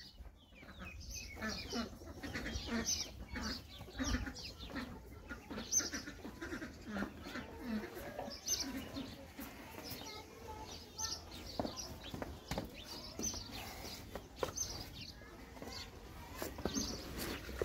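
Hens clucking and small birds chirping in short repeated notes, with scattered brief knocks.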